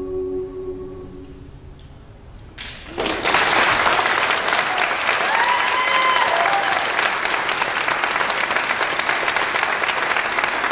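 The last held chord of a small a cappella vocal ensemble fades out in the first two seconds. After a short hush, audience applause breaks out about three seconds in and keeps going, with a single voice whooping over it a few seconds later.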